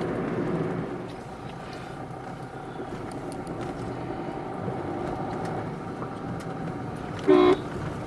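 Car driving along a road, heard from inside the cabin: steady engine and road noise. A brief loud pitched sound cuts in once near the end.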